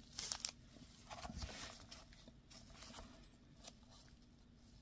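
Faint rustling and scraping as a Pokémon card collection box is handled, a few short swishes with a small click about three and a half seconds in.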